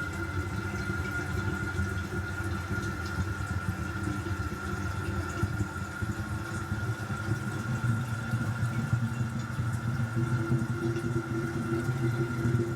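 An older toilet's tank refilling after a flush: water running through the fill valve as a steady hiss with a high whistling tone and a low hum, the hum growing a little stronger near the end.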